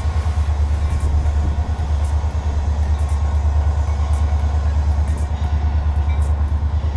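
A steady, loud low rumble with a fast flutter in level.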